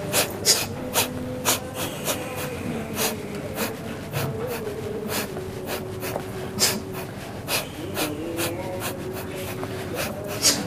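A person's sharp, short nasal breaths or snorts, irregular at about two a second, over a faint wavering hum.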